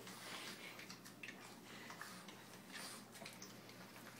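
Faint scattered ticks and soft wet smacks from two Boston terriers on a wooden floor, one licking up the whipped cream.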